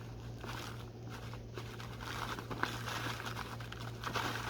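Plastic packaging crinkling and rustling as it is handled, with small irregular ticks, over a steady low hum.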